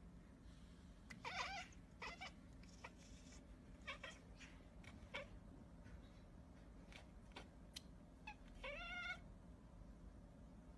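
A cat meowing faintly several times: short meows early on and a longer, clearer meow that rises then falls near the end.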